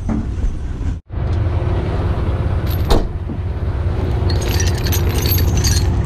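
Heavy truck engine idling steadily, with a brief break in the sound about a second in; from about four seconds in, steel tow chains and hooks clink and rattle as they are handled.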